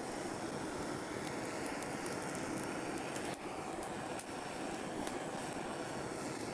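Gas torch flame burning steadily against a cedar board, with faint crackling from the charring wood surface.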